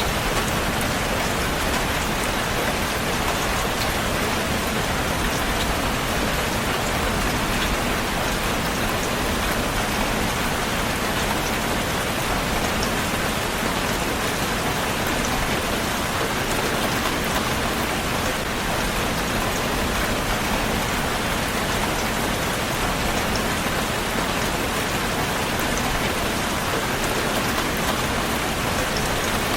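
Heavy rain falling steadily, a dense, even hiss of countless drops hitting a surface, with no letup.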